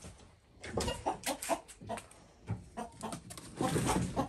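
A chicken clucking in a string of short, agitated calls, starting about a second in and getting busier near the end.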